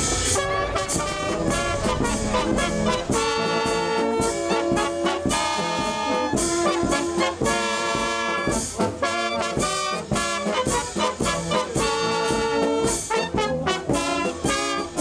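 Brass band playing a lively tune with held brass notes over a steady beat. A low rumble lies under the first three seconds.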